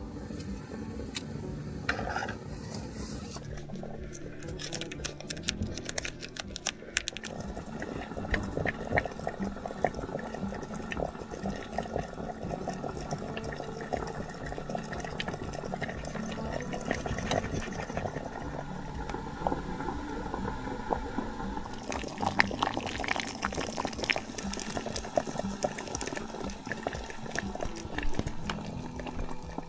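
Water bubbling in a pot, a dense steady crackle of bubbles that sets in about four seconds in.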